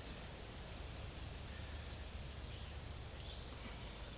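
Insects trilling in a steady, high-pitched chorus without a break.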